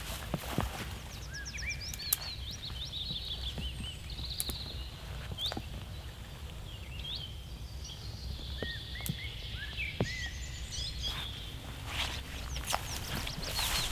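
Footsteps rustling and swishing through low forest undergrowth, with twigs snapping; the rustling is heaviest near the start and again near the end. Small songbirds chirp with short sliding calls throughout.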